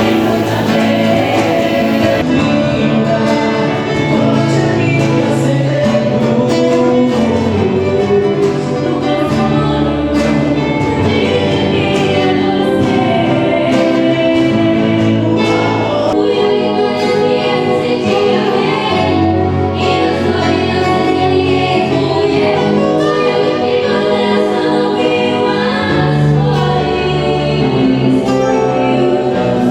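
Choir singing with instrumental accompaniment and a steady beat.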